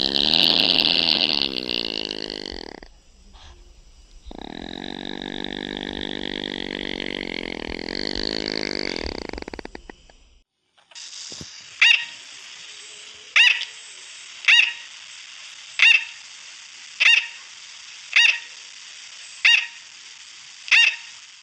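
Animal calls: two long drawn-out pitched calls, then a sharp short call repeated about every second and a quarter over a steady hiss.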